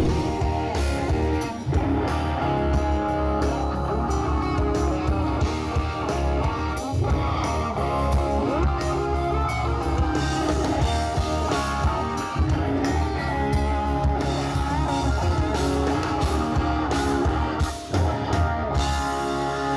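Rock band playing live, with electric guitars and drums through the stage speakers.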